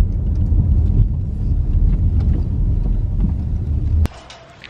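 Car road noise heard from inside the cabin while driving: a steady low rumble of engine and tyres. It cuts off suddenly near the end.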